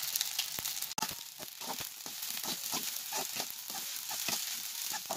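Fried rice sizzling in hot oil in a wok over high heat, with a perforated metal spatula scraping and clicking against the pan again and again as the rice is tossed and stirred.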